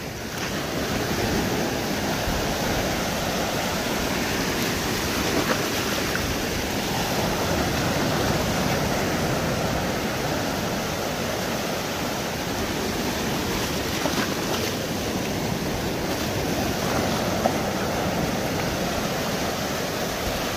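Surf breaking and washing up a beach: a steady rush of waves with no let-up.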